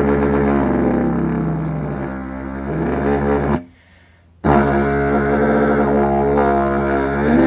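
A replica carnyx, the Gaulish war trumpet, built to the dimensions of the great Tintignac carnyx, being blown: a loud, buzzing brass drone with shifting overtones. The pitch slides down in the first few seconds, the tone breaks off for under a second near the middle, then it resumes and bends up near the end.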